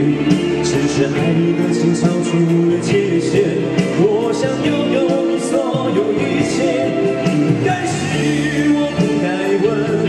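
Live pop ballad: a man singing at a microphone, accompanied by guitar and electronic keyboard.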